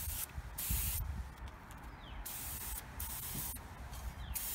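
Paint sprayer hissing in short bursts, about four of them, as a coat of olive drab paint is sprayed onto a steel M1 helmet.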